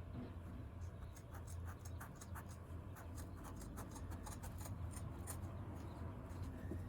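Carpet being trimmed by hand: a run of faint, irregular snips and scratches over a steady low hum.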